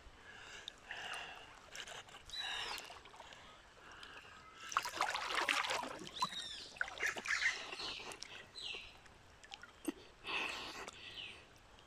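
River water sloshing and splashing close by, loudest about five seconds in, while birds repeatedly give short, downward-sliding chirps.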